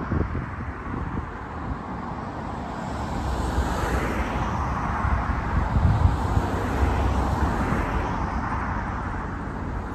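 Jet airliner's engine noise, swelling from about two seconds in, loudest midway and fading near the end, with wind rumbling on the microphone.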